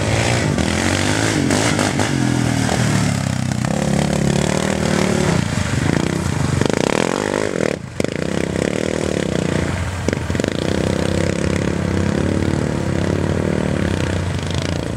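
Sport ATV engine revving hard through a mud pit, rising and falling with the throttle, with mud and dirt spattering. The engine drops off briefly about halfway through, then picks back up.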